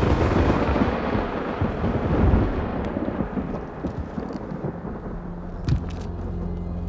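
A sudden loud boom, a film explosion effect, rumbling away over about four seconds. Near the end there is a click, then a low steady music drone comes in.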